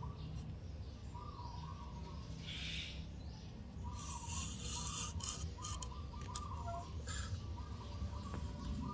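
Short bird chirps at about the same pitch, repeating over a steady low rumble, with patches of soft rustling.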